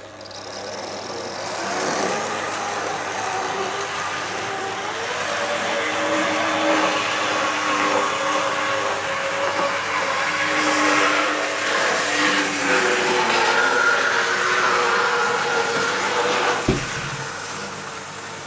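Model Blue Pullman train running round a model railway layout: a steady mechanical running noise of motor hum and wheels on the track, building over the first couple of seconds. A single sharp click sounds near the end.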